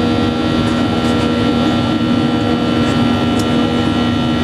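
Airliner engines and airflow heard inside the passenger cabin: a steady loud drone with a constant hum.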